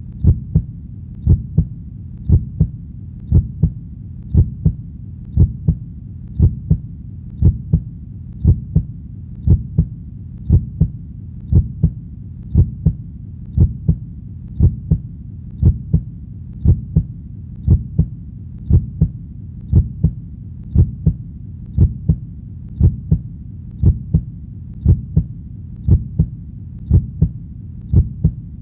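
A heartbeat in a steady lub-dub rhythm, a little under one beat a second, each beat a pair of low thumps over a faint low hum.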